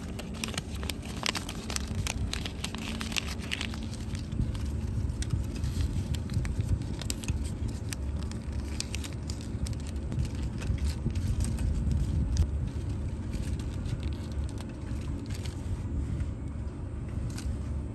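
Paper omikuji fortune slip crinkling and rustling in the hands as it is folded and tied onto a string, in many small crackles, busiest in the first few seconds. A steady low rumble runs underneath.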